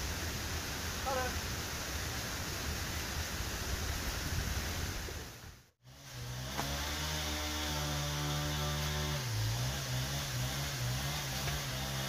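Steady rush of a waterfall for about the first half. After a brief drop-out near the middle, it cuts to a steady low hum with a few held pitches that shift now and then.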